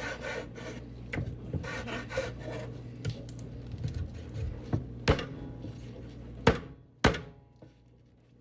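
Knife scraping and rubbing on a cutting board while raw chicken legs are trimmed of fat and skin, with scattered small clicks and a few sharp knocks of the blade on the board in the second half.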